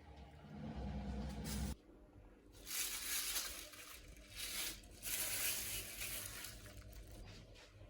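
Food sizzling in a frying pan while it is stirred, in irregular crackling bursts. A low steady hum stops suddenly a little under two seconds in.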